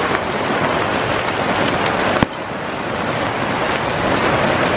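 Hail falling hard with rain: a dense, steady hiss of pelting ice pellets, with fine scattered ticks of individual hits. One sharp click about two seconds in.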